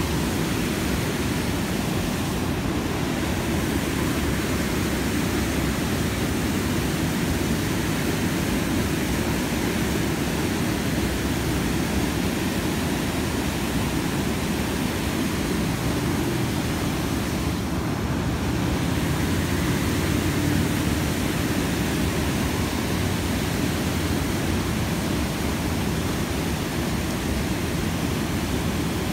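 Water pouring over a low dam spillway and rushing through the rapids below: a steady, deep rush with no breaks.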